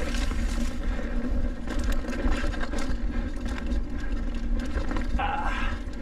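Trek Roscoe 8 hardtail mountain bike ridden down a dirt trail: wind rushing over the mic, the tyres rolling on dirt, and the bike rattling and clicking over bumps, with a brief high squeal about five seconds in.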